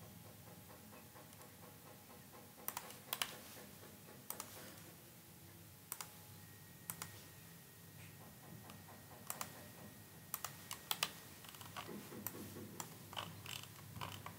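Faint, irregular clicks of a computer mouse and keyboard, a dozen or so, scattered and quickening near the end.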